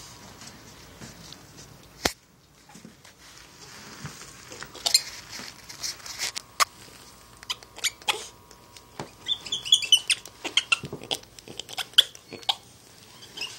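Spider monkey rummaging in wood-shaving bedding and handling a toy: scattered rustles, scratches and sharp clicks. One sharp click comes about two seconds in, and the activity gets busier in the second half.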